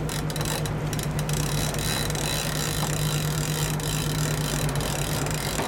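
Charter fishing boat's engine running steadily, a low even hum under a wash of wind and water noise.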